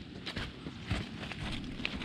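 Hiking boots stepping through dry fallen leaves, a few irregular rustling, crunching footsteps passing close by.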